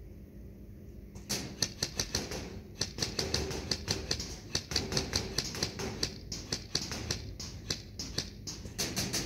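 Airsoft guns firing: an irregular clatter of sharp shots and pellet hits, starting about a second in.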